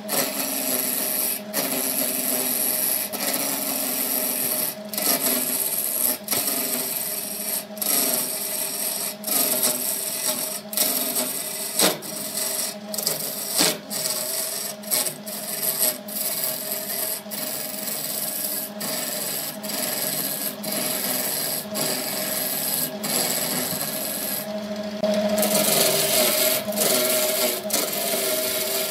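Wood lathe spinning a large glued-up wood blank while a hand-held turning chisel cuts into it: a continuous rough scraping cut over a steady motor hum, broken by brief gaps every second or two as the tool eases off. Near the end the cut grows a little louder.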